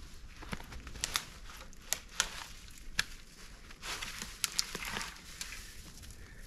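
Dry twigs and small branches of a fallen limb snapping with a string of sharp cracks as it is broken up and lifted, over crunching snow and rustling brush.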